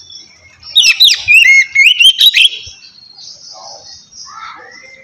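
Oriental magpie-robin singing: a loud phrase of clear whistled notes and quick rising and falling glides about a second in, lasting about a second and a half, followed by softer twittering.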